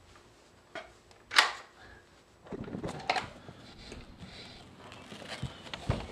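A door's lever handle and latch clicking as the door is unlatched, the sharpest click about a second and a half in, followed by rustling and a few soft knocks as the door is opened.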